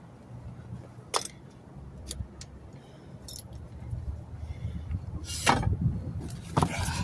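Metal clinking and clanking from work at a wheel balancer, with wheel weights and tools being handled: a few light clicks, then two louder clanks near the end, over a low steady hum.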